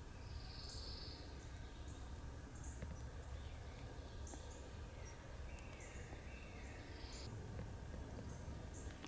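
Small birds singing: many short, high chirps repeat throughout, with a long high whistle near the start and a series of falling stepped notes a little past halfway. Under them runs a steady low rumble.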